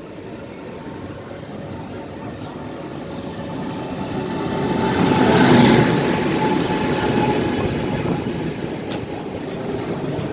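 A train running past on the rails, its rumble swelling to a peak about halfway through and then slowly fading.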